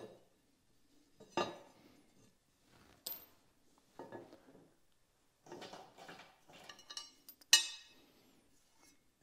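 Scattered metallic clinks and knocks from handling bolts and a bolted mounting plate at the end of a plow blade's rubber sideboard. The loudest knocks come about a second and a half in and, sharper, about seven and a half seconds in.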